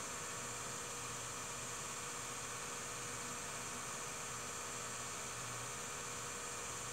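Steady electrical hum with hiss, unchanging throughout, and no other sound: the background noise of a silent home-movie film transfer.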